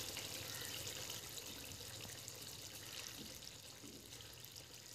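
Eel curry sizzling in a metal wok, a steady faint hiss that slowly gets quieter.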